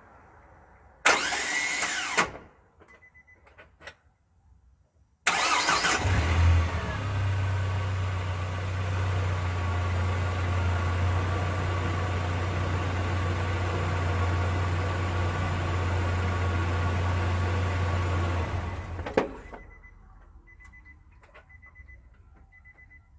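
Car engine: a short burst of engine noise about a second in, then the engine starts, idles steadily for about thirteen seconds and is switched off. After it stops, faint scattered clicks follow: the clicking at shutdown whose source and cause mechanics could not agree on.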